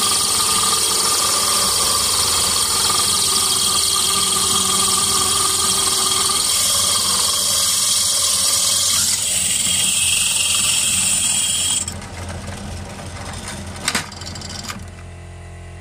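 Drill press running a tubular core bit that grinds a hole through the shoulder of a glass bottle: a loud, steady grinding hiss over the motor hum. The grinding changes about nine seconds in and stops about twelve seconds in as the bit is lifted, leaving a quieter motor hum with a single sharp knock near the end.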